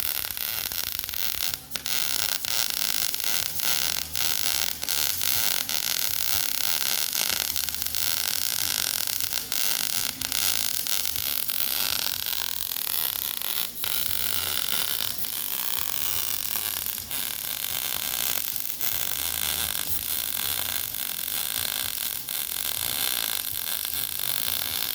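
Electric arc welding: the arc's steady crackling hiss as a wide fill pass is run on the bulldozer blade repair piece.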